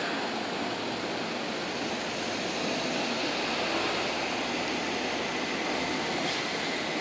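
Steady rushing noise from a Seibu 30000 series electric train standing at a station platform, with no rising motor whine; a faint steady high tone comes in about halfway.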